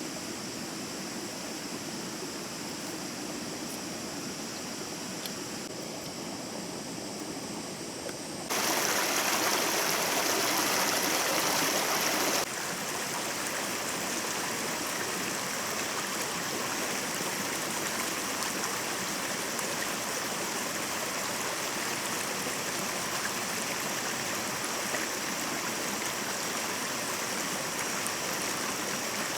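Stream water running with a steady rush. About a third of the way in the sound suddenly turns louder for a few seconds, then drops back to an even flow.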